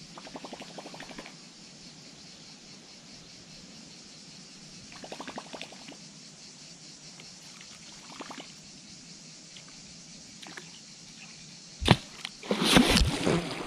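A big wels catfish strikes a topwater lure near the end: a sharp smack, then about a second of heavy splashing. Before that, a baitcasting reel is cranked in short bursts, a fast ticking, as the lure is worked across the water.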